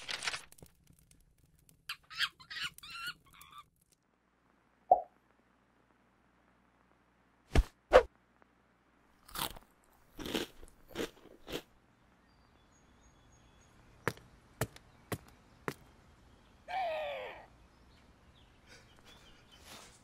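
Sparse cartoon sound effects separated by near silence: a short rustle at the start, a quick fluttering chirp, two sharp knocks about eight seconds in, a cluster of short noisy bursts, a run of single clicks, and a brief wavering squeal near the end.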